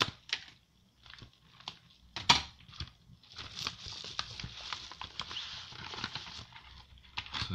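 A parcel's packaging being opened by hand: scattered crinkles and clicks, a sharp crack about two seconds in, then several seconds of continuous crinkling and tearing.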